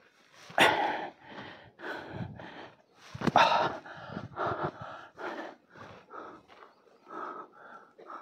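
Hard, quick panting of a hiker climbing, close to the microphone: short noisy breaths about two a second, with a louder gasp about half a second in and another, with a click, about three seconds in.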